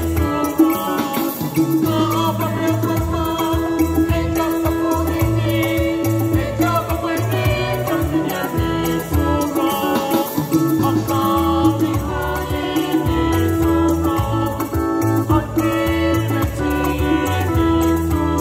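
A small group of young voices singing a gospel praise song to a Yamaha PSR-SX700 arranger keyboard, with a bass line and a fast, even shaker-like percussion rhythm from the keyboard's accompaniment.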